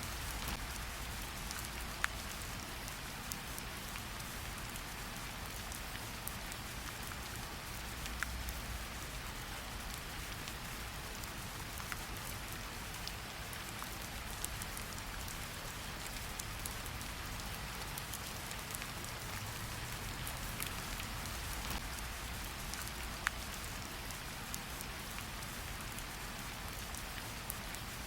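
Steady hiss of rain mixed with a crackling wood fire in a fireplace, with a handful of sharper, louder pops standing out from the crackle.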